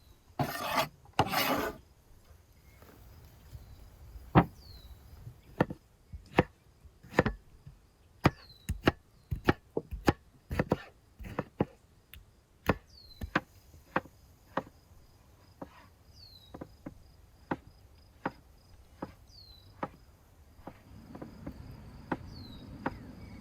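A kitchen knife chopping on a wooden cutting board: a long run of sharp separate strikes, one or two a second, uneven in spacing and loudness. Two short scraping sounds come first.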